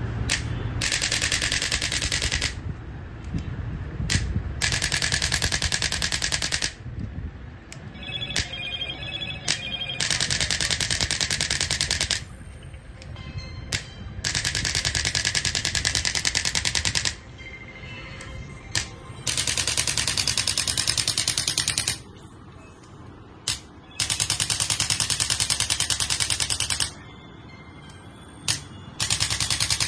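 A telephone bell ringtone rings in a rapid, rattling trill. It comes in bursts of two to three seconds with pauses of about two seconds between them, about seven rings in all.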